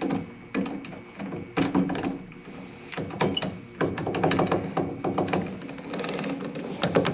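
2x72 belt grinder running with a fast, dense clattering rattle over a steady motor tone: the sign of a failing wheel bearing. A few knocks come first, and the rattle thickens about four seconds in.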